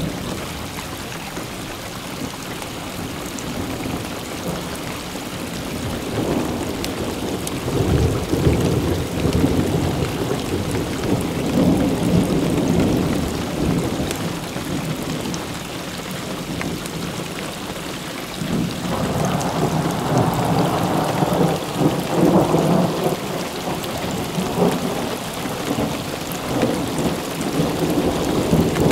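Thunder rolling twice over steady rain. One long rumble builds about six seconds in and fades, then a second roll breaks in suddenly about two-thirds of the way through and rumbles on almost to the end.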